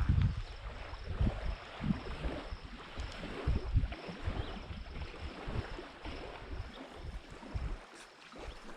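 Wind gusting on the microphone in irregular low buffets over a steady wash of water.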